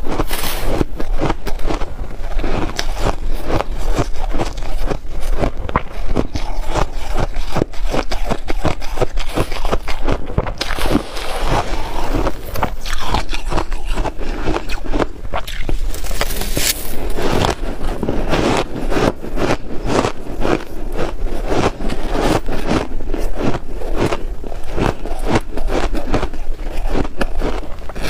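Close-miked crunching of shaved ice being chewed, mixed with a metal spoon scraping and scooping through a tray of shaved ice, a dense, continuous crackle.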